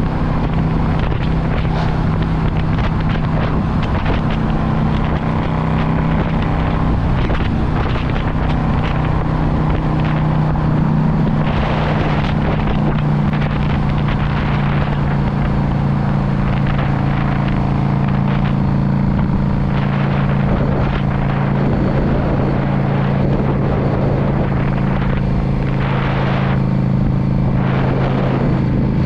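A Yamaha V Star 650's air-cooled V-twin running steadily while riding. Its note steps a little lower about two-thirds of the way through. Wind gusts rush across the microphone.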